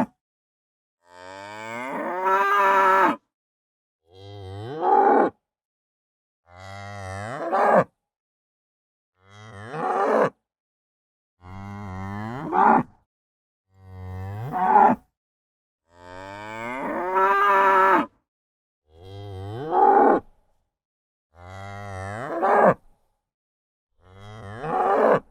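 Cow mooing: about ten separate moos, each a second or two long, that rise in pitch and grow louder toward the end, with silence between them.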